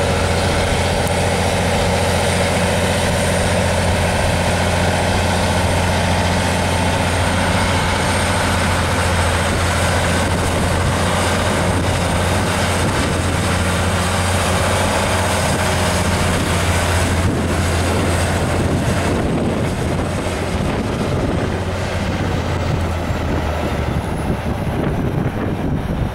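Heavy-haul tractor unit's diesel engine pulling a heavy steel-tank load up a steep grade: a steady low drone at constant pitch. From about two-thirds of the way through, wind buffets the microphone, and near the end the engine drone weakens as the truck moves on.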